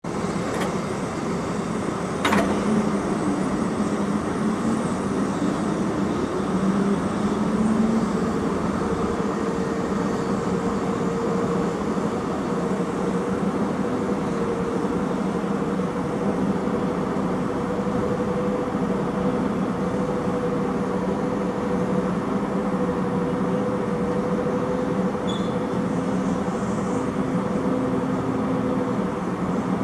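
Steady machinery hum over a wash of city noise, with one drone rising in pitch for a few seconds and then holding steady. There is a single sharp click about two seconds in.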